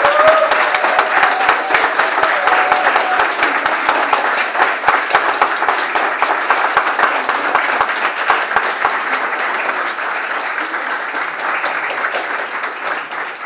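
Audience applauding, many hands clapping at once, slowly dying down toward the end.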